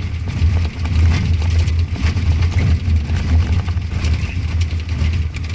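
Vehicle engine running at low speed with a steady low drone, heard from inside the cab, with scattered clicks and rattles over a rough road.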